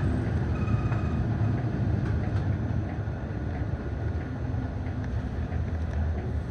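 City bus running through town, heard from inside the cabin: a steady low engine and road rumble as it turns through a junction.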